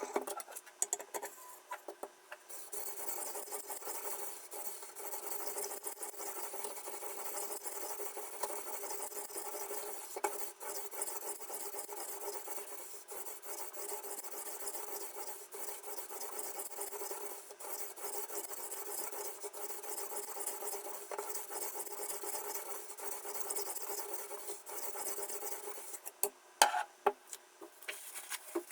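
A sharpening stone on a guided-rod knife sharpener rubbing back and forth along the edge of a kitchen knife: a steady grating rasp with no breaks. A few sharp clicks and knocks of handling come at the start and again near the end.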